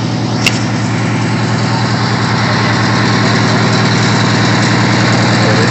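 Fire truck engine idling with a steady low hum that grows gradually louder. There is one short click about half a second in.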